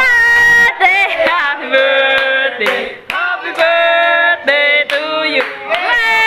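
A group of voices singing a birthday song together, holding long notes with some wavering pitch.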